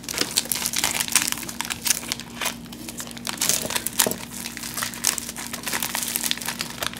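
Foil biscuit wrapper being crinkled and torn open by hand: a continuous run of sharp crackling.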